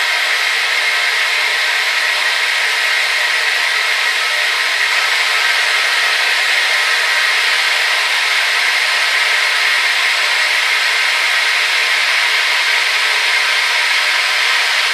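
Hair dryer running steadily: an even airy rush of motor and fan noise, strongest in the upper middle, with no change in level.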